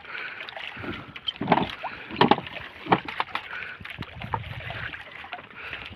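Water washing around a small fishing boat's hull, with about six irregular sharp knocks and splashes as the catch is handled alongside.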